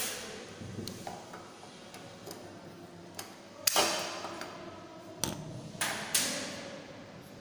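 A handful of sharp metallic clicks and knocks at uneven spacing, each with a short ringing tail, from a stainless steel saucepan being handled on the cast-iron grate of a gas stove. The loudest knock comes a little past halfway, with another near the end.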